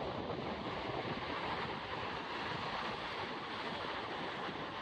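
Ocean surf breaking and washing up a sandy beach in a steady rush, with gusty wind on the microphone.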